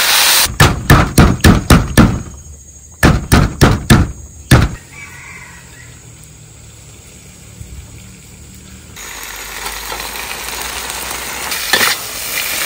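Two quick runs of loud, sharp knocks, about seven and then five strikes, like a kitchen utensil striking hard. Then, after a quieter pause, food begins frying and sizzling in a steel wok, with a few more knocks near the end.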